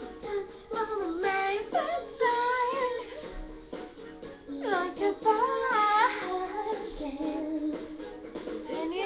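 A young woman singing a pop melody solo, in phrases of long held notes that waver in pitch.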